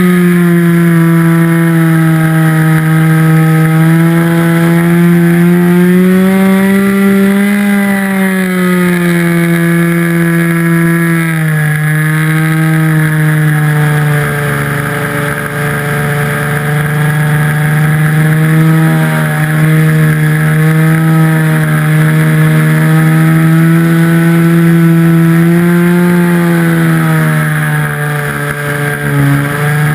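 RC model airplane's nose-mounted motor and propeller running steadily in flight, heard from on board. The pitch rises about six seconds in, drops a few seconds later, and dips briefly near the end.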